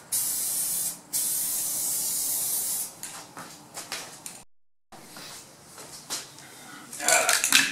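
Aerosol spray can of SEM Color Coat dye hissing in two long bursts with a short break about a second in, laying a light first coat onto plastic trim. It stops at about three seconds, and scattered footsteps and knocks follow, louder near the end, with the sound cutting out briefly midway.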